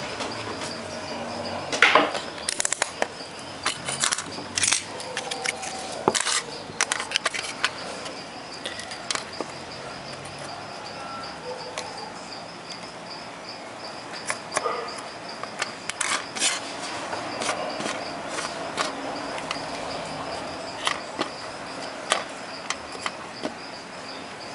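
Scattered light clicks and taps of small metal parts being handled and soldered on an aluminium sheet: wire-wound resistor leads, solder wire and the soldering iron tip, with a cluster of louder clicks about two seconds in. A steady, faint high-pitched whine runs underneath.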